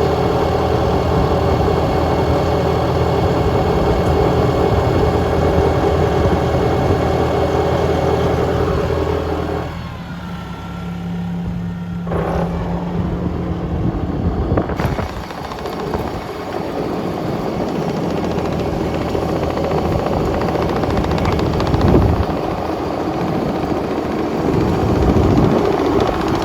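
Wirtgen W 35 Ri cold milling machine's diesel engine running steadily. About ten seconds in, the sound drops and changes character, then settles into a steady run again.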